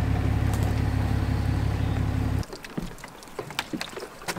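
Fish-hauling delivery truck running at idle, a steady low hum that cuts off abruptly about two and a half seconds in. Quieter scattered knocks and clicks follow as the fish tank is worked.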